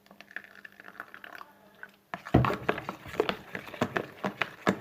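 A spoon stirring a wet, soapy slime mixture in a plastic tub, with irregular clicking, knocking and squishing that starts about two seconds in.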